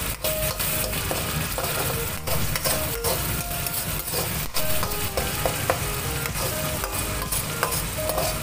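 Blended shallot and chili paste sizzling as it is sautéed in a pan, with a spatula stirring it and scraping against the pan again and again.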